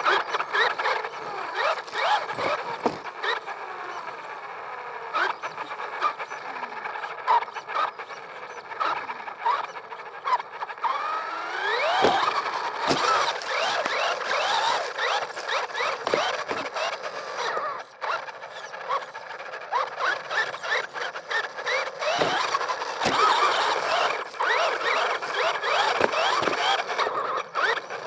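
Traxxas radio-controlled car being driven, its motor whining up and down in pitch over and over as it speeds up and slows, with squeals and scattered sharp knocks.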